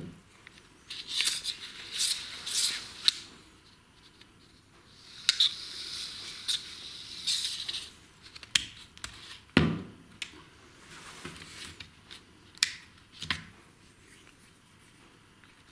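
Hands handling and turning a plastic recoil pull-starter housing from a Honda GCV160 engine: short scratchy rubbing and scraping sounds, then scattered sharp clicks and a single dull knock about halfway through.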